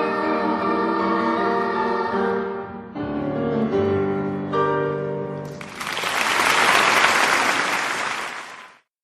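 A choir singing held chords with piano accompaniment, ending about halfway through. Applause follows for about three seconds and cuts off suddenly.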